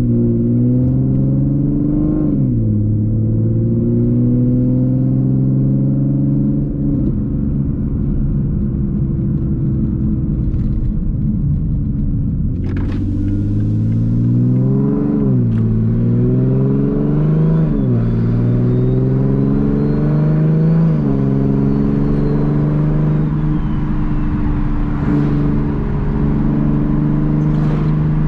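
Modified Toyota Supra's turbocharged straight-six with a catless downpipe and a single-exit titanium cat-back exhaust, heard from inside the cabin while driving. The exhaust drone is loud and steady, and several times the pitch climbs under acceleration and drops back sharply at an upshift.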